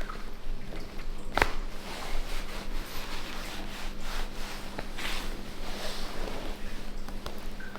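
Hands rubbing and shifting on skin, clothing and the treatment table during manual therapy, with one sharp click about a second and a half in.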